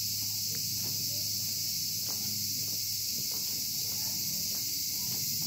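Steady high-pitched insect chorus that does not change, with faint footsteps ticking underneath.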